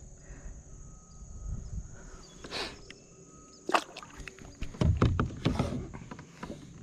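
Scattered knocks and clatter of a paddle and fishing rod being handled against a plastic kayak, with a louder cluster of bumps about five seconds in.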